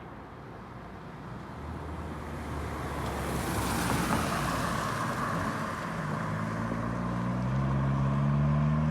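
Road vehicles going by: one passes with tyre and road noise swelling to a peak about four seconds in. A second engine then draws near, its hum slowly rising in pitch and getting louder.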